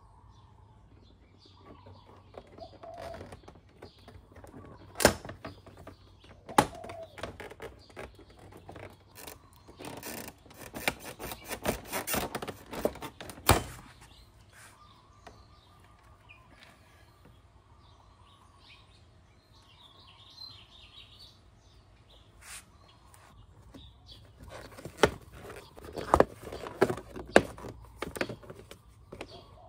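Plastic body panels and trim clips on a scooter being pried off and handled by hand: a series of sharp snaps and clicks with plastic clattering, in two busy stretches, one near the middle and one near the end.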